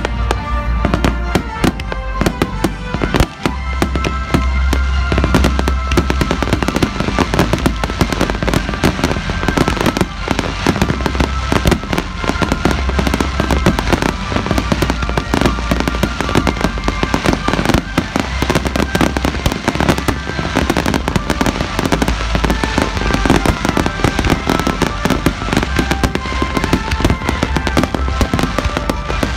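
Daytime fireworks starmine: a dense, continuous barrage of shell bursts and crackling, with music playing underneath.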